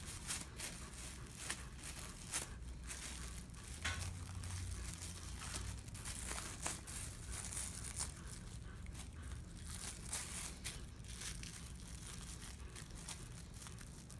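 Blue plastic poodle topknot wrap crinkling in irregular little crackles as it is folded and pressed around a section of hair.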